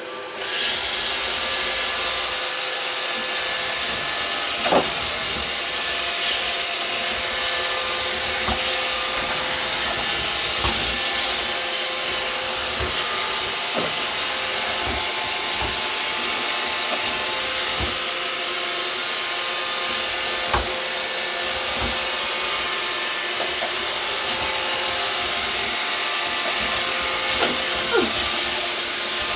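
iRobot Create 2, a remanufactured Roomba, running as a robot vacuum: a steady whirring hum of its vacuum and brush motors that starts up abruptly, with a few light knocks along the way.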